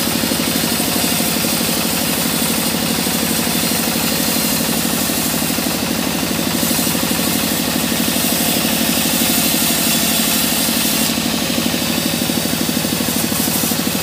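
Band saw resawing a mahogany block into boards: a loud, steady machine drone with a fast, even pulse as the blade cuts through the wood.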